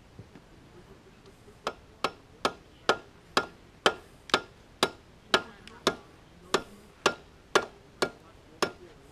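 Hammering: a steady run of about sixteen sharp blows, roughly two a second, each with a short ring, starting a little under two seconds in.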